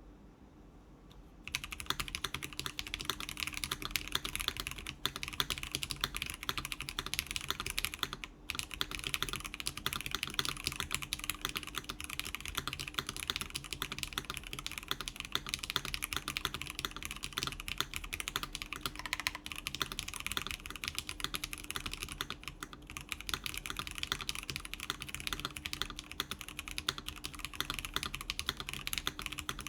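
Fast, continuous typing on an NK Classic TKL mechanical keyboard with lubed NK Classic Blue clicky switches, a polycarbonate plate and GMK keycaps, in a case with foam and a silicone insert. The dense run of keystrokes starts about a second and a half in and breaks off briefly about a third of the way through.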